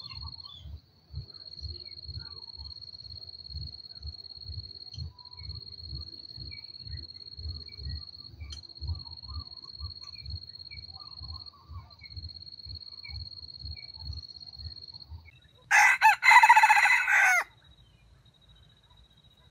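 A red junglefowl rooster crows once, a short crow of about a second and a half, about sixteen seconds in. Before the crow there is a steady high-pitched whine and a soft, low pulsing of a few beats a second.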